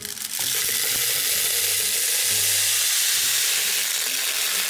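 Some two thousand plastic pony beads pouring from a compartment tray into a clear bowl: a continuous dense rattle of small hard beads landing on the bowl and on each other, easing off at the very end.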